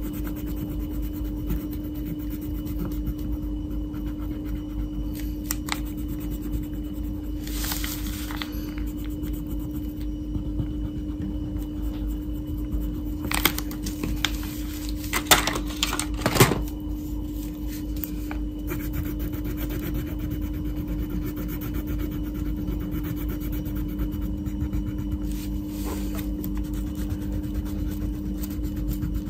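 Wax crayon rubbing and scratching on paper as a drawing is coloured in, with a few sharper scrapes and taps around the middle, over a steady low hum.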